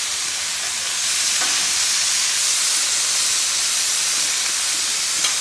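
Steak kebabs sizzling on a hot flat-top griddle while the skewers are turned with metal tongs, a steady hiss that grows louder about a second in as a skewer lands on a fresh hot spot. A faint scrape of the tongs comes soon after, and a small click near the end.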